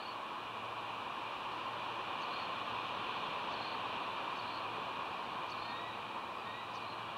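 Steady outdoor background hiss with no clear single source, with a few faint, short high chirps scattered through it.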